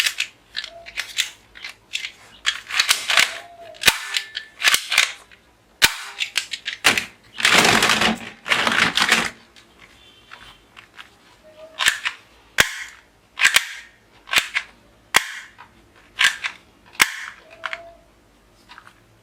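Toy pistols working: a string of sharp plastic clicks and snaps at uneven intervals, with a longer noisy burst about seven to nine seconds in.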